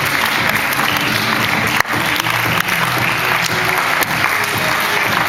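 Audience applauding steadily, with music playing underneath.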